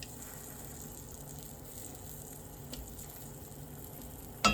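Quesadilla frying in melted butter in a pan, sizzling steadily. A sharp clink near the end, with a brief ring.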